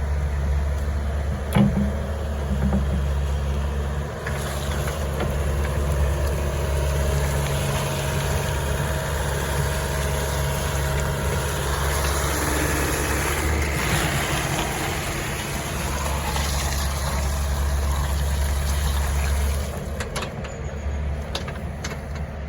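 Diesel engine of a 2018 Doosan DX62R-3 excavator running steadily with a low drone. There is a sharp click about a second and a half in, and the sound drops in level near the end.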